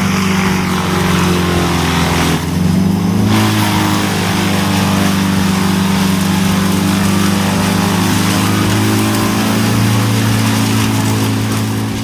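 Vermeer BC2000XL brush chipper running hard with its engine at a steady high note, over a dense grinding noise. About two seconds in, the engine note dips briefly and the grinding thins, then both pick back up.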